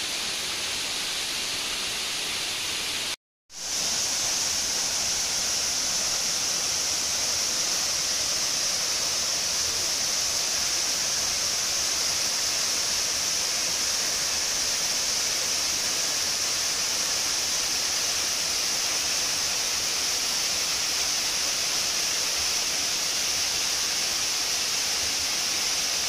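The Kabaragoi waterfall, a 23 m fall over rock, rushes steadily as a constant hiss of falling water. The sound cuts out for a moment about three seconds in, then comes back a little louder and brighter, heard close to the foot of the falls.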